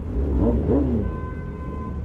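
Superbike engine revved in two quick throttle blips, pitch rising and falling, over a low steady engine rumble at walking pace. A steady horn-like tone sounds through the second half.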